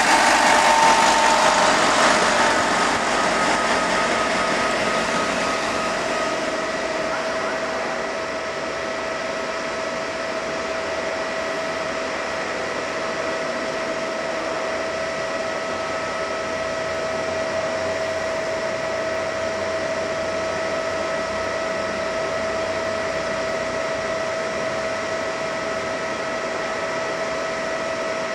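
Electric train passing, its rolling noise fading over the first several seconds. Beneath it runs a steady fan-like whirr with a constant whine that holds throughout.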